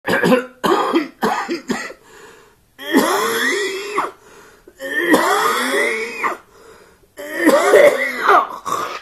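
A voice making four short harsh bursts, then three long wavering calls, each sliding up and down in pitch for a second and a half or so.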